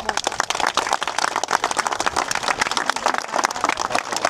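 An outdoor crowd applauding: many people clapping at once in a dense, steady patter.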